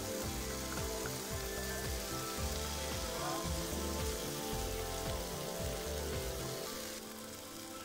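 Tandoori-marinated chicken pieces sizzling in butter in a hot nonstick pan while a spoon turns them over, under background music with steady held tones. The sound drops a little near the end.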